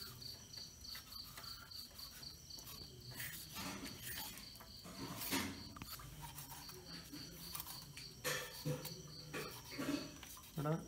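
Crickets chirping in a steady rapid pulsing trill, with a few scraping strokes of a kitchen knife scoring whole fish on a counter.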